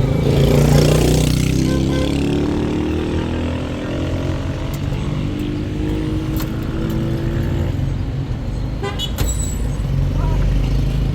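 Road traffic: a noisy rush as a vehicle goes by at the start, then an engine running with its pitch climbing slowly as it pulls away, and a few sharp clicks near the end.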